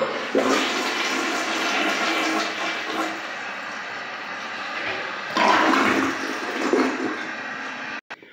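Mansfield Alto toilet flushing: a sharp start as it is tripped, then steady rushing, swirling water that grows louder about five seconds in. It cuts off suddenly near the end.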